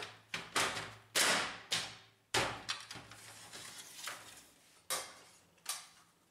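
Plastic top cover of a Brother laser printer being seated and pressed onto the printer body: a series of sharp plastic knocks and clicks, about six close together in the first two and a half seconds, then a few single ones spaced about a second apart.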